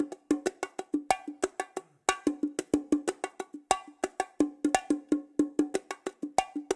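Fisher-Price toy bongo drums played in a quick, steady run of hollow, pitched strikes, about four or five a second, with a brief pause about two seconds in.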